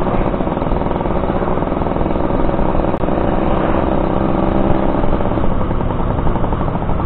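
Suzuki RC100's two-stroke single-cylinder engine running steadily under way.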